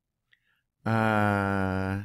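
A man's drawn-out hesitation sound, held on one steady pitch for about a second, starting about a second in.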